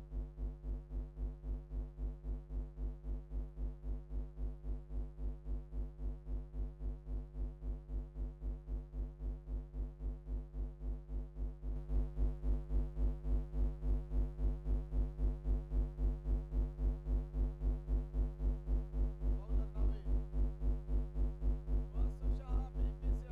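Background electronic music with a steady pulsing beat and heavy bass, getting louder about halfway through.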